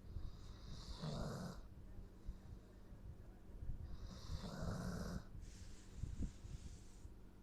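Doberman snoring: two snores about three and a half seconds apart, each a breathy hiss that turns into a rasping snore, with a softer airy breath between them.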